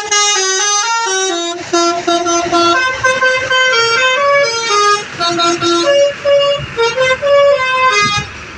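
Bus telolet horn, a Basuri multi-tone musical air horn, playing a quick melody of stepped notes that change pitch every fraction of a second. It is loud and cuts off a little after eight seconds in.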